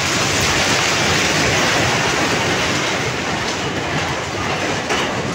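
Multi-storey building collapsing: a loud, sustained rumble and clatter of falling concrete and brick rubble.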